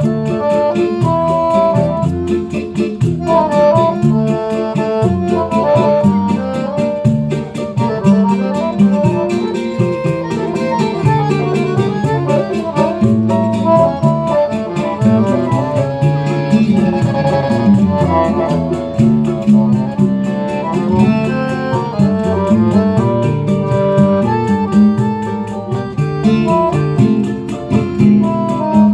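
Choro ensemble playing an instrumental passage with no singing: acoustic guitars and a cavaquinho strumming and plucking under an accordion melody, with a pandeiro keeping time.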